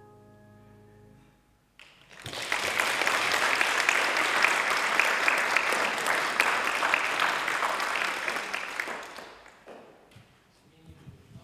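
The last held note of the accompanying music fades out, then an audience applauds for about seven seconds before dying away.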